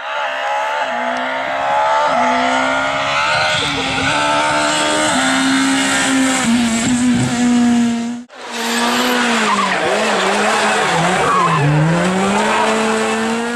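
Rally cars at full speed on a special stage, heard in two separate passes. In the first, the engine revs hard and its pitch steps up with each gear change. The sound cuts off abruptly about eight seconds in. In the second pass, the engine note drops as the car slows into a corner, then climbs again as it accelerates away.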